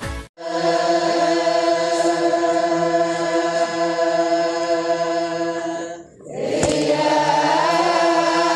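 Choir chanting long, held chords, as intro music; the chord breaks off briefly about six seconds in and then resumes.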